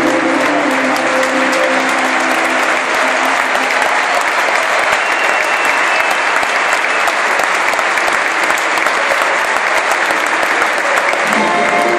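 A huge stadium crowd applauding steadily. Music plays along with it for the first few seconds, fades out, and comes back near the end.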